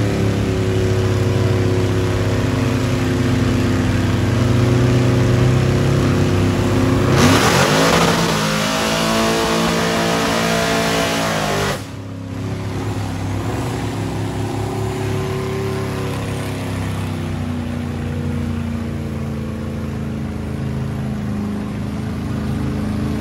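Big truck engine running hard, revving up sharply about seven seconds in and held at high revs for several seconds. The level then drops suddenly to a steadier, lower engine sound.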